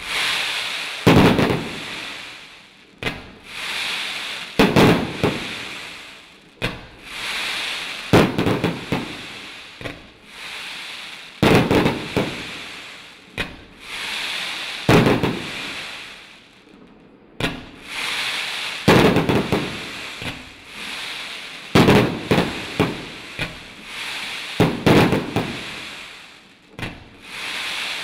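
Firework cake (100-shot Z-shape time rain coconut with multi strobe) firing shot after shot: a sharp launch bang every couple of seconds, each followed by a fading crackling hiss from the glittering time-rain burst.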